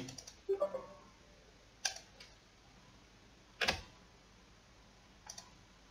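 Three sharp computer mouse clicks, about two seconds apart, the middle one the loudest, with a faint room hush between them.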